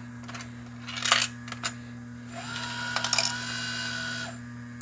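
Lionel model train running on its track: a few sharp metallic clicks and clacks over a steady electrical hum, with a steady whine for about two seconds in the second half.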